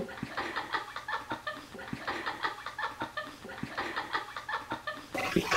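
Giggling laughter: a quick run of short, high, breathy bursts that gets louder near the end.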